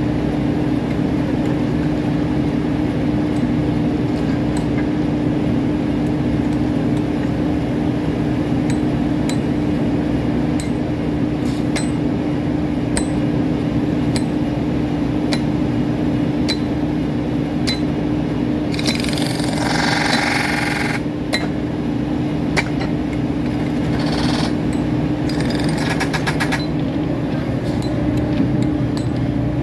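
A track machine's engine running steadily close by, with a constant hum. Scattered sharp metal clinks of tools on rail come through it, and there are two short bursts of hissing about two-thirds of the way through.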